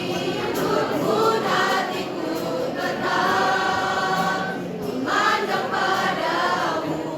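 Student choir singing, with long held notes in several voices.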